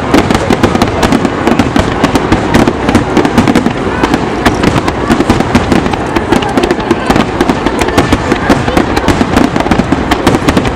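Fireworks display: a dense, continuous barrage of loud bursts and crackles, many per second.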